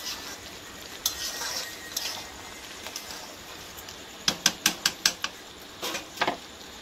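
A metal ladle stirring a thick curry in a metal kadai, scraping and clinking against the pan every second or so. A little past the middle comes a quick run of about six sharp clinks.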